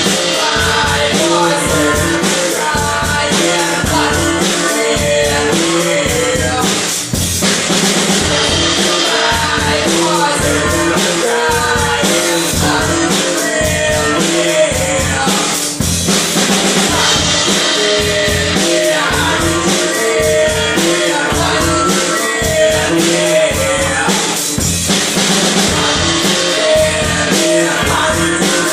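Rock band playing a song, recorded live in the rehearsal room: drum kit with a steady kick-drum beat and cymbal wash under guitars and bass.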